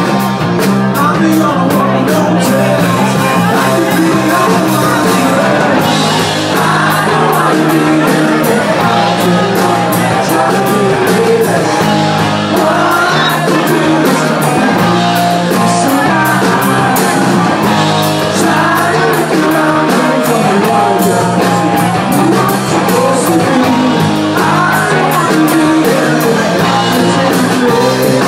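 Rock band playing live: electric guitars, bass guitar and a drum kit keeping a steady beat, with a lead vocal at times.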